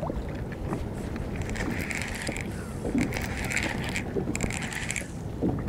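Small waves slapping against a plastic kayak hull in short splashes about every second and a half, over steady wind noise on the microphone.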